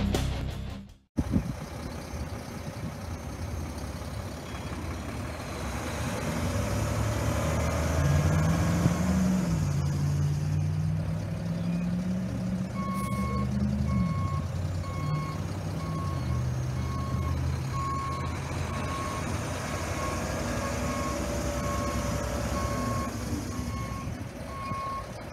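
Mack CXU613 road tractor's diesel engine running as the truck moves on the lot, its pitch rising for several seconds midway and then dropping as it lets off. From about halfway, a reverse alarm beeps steadily at about one beep a second.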